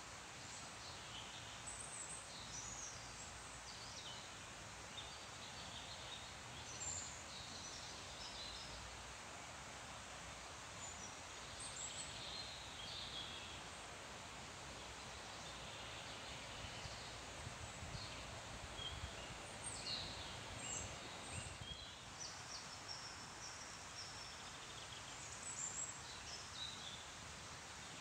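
Small birds chirping and singing in short, scattered phrases over a steady hiss of tree leaves rustling in the wind.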